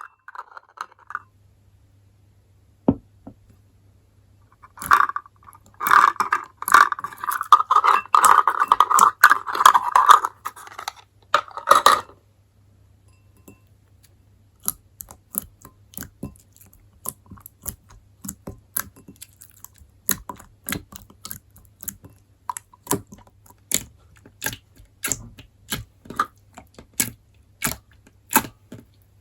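Water slime being squished and worked by hand: a few seconds of dense, busy squelching, then a long run of separate wet clicks and pops, about two or three a second.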